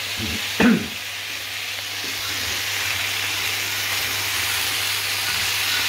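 Cornflour-coated chicken cubes frying in a non-stick pan, a steady hiss that slowly grows a little louder as the chicken crisps. A brief louder sound comes just over half a second in.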